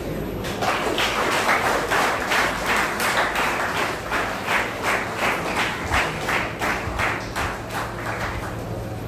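A crowd applauding in a hall. The clapping starts about half a second in, falls into a steady beat of about three claps a second, and fades out about eight seconds in.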